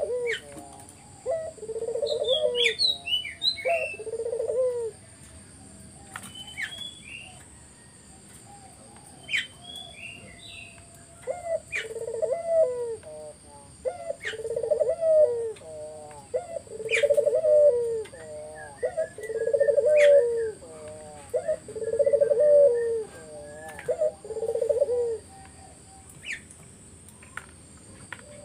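A puter dove (Barbary or ringneck dove) cooing repeatedly in full 'gacor' form, each coo about a second long: three in a row, then after a pause of several seconds a steady run of about seven more. Small birds chirp briefly at a higher pitch between the coos, over a faint steady high-pitched whine.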